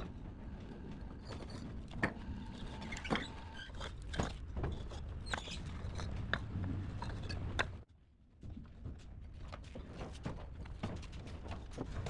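Hollow clay bricks clacking and knocking against one another as they are handled and stacked, over a steady low rumble, with a few short high squeaks in the first few seconds. The sound drops out briefly about two-thirds of the way through.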